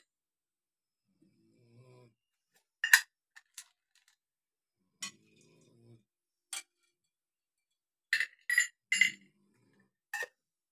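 Small shrine cups clinking against one another and the shelf as they are picked up and set down, about nine separate clinks with a quick run of three near the end.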